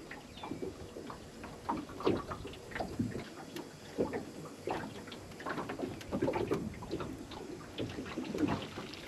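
Irregular small splashes, drips and light knocks of water at the boat while catching bait fish, with no steady engine underneath.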